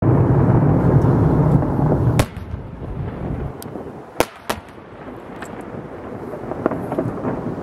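Aerial fireworks shells bursting. A deep rumble fills the first two seconds, then come sharp bangs: a loud one about two seconds in and a close pair about four seconds in, with fainter cracks between them.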